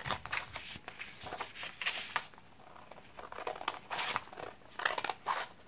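Scissors snipping through a sheet of paper, in irregular runs of cuts with short pauses, along with the light rustle of the paper being handled.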